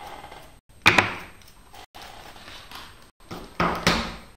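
Several sharp knocks: two close together about a second in, then three more near the end, each dying away quickly.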